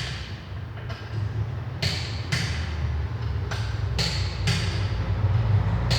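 Short hissing bursts from a shop tool, about seven in six seconds, over a steady low hum, during stabilizer-link replacement on the car.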